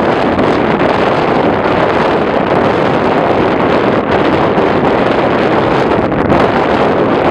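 Wind buffeting the microphone: a loud, steady rushing noise with no break.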